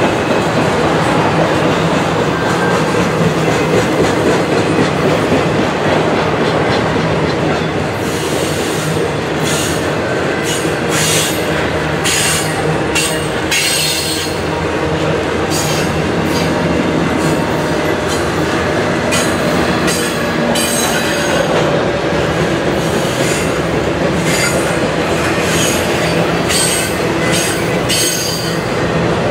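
Intermodal freight cars loaded with containers and trailers rolling past with a steady rumble of steel wheels on rail. From about a third of the way in, short high-pitched wheel squeals come again and again.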